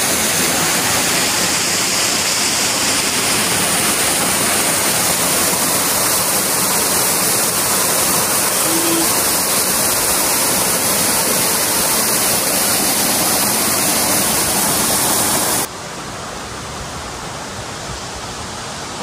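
Steady rush of falling water, a loud even hiss, that cuts off suddenly near the end and leaves a quieter hiss.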